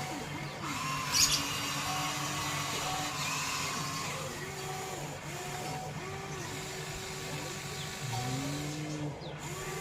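Small electric motors of a toy RC excavator whining in short rising-and-falling runs over a steady low hum as the arm moves. About a second in, a single sharp pop, a water balloon bursting.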